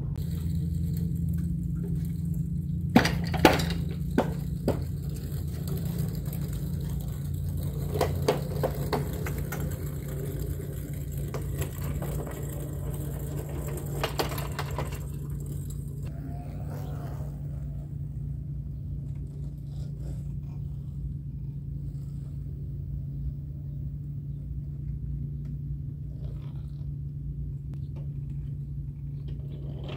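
Mosquito Air ultralight helicopter's engine running at a steady speed with a low hum, heard from some distance across the driveway. A few sharp knocks come about three seconds in.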